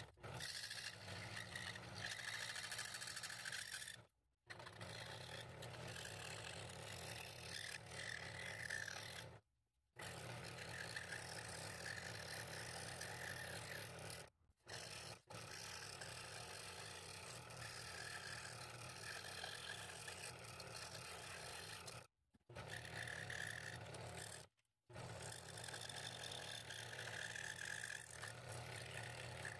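Scroll saw running, its blade cutting fretwork and slots in 1/8-inch walnut with a steady motor hum and a rasping cut. The sound breaks off into short silences about five times.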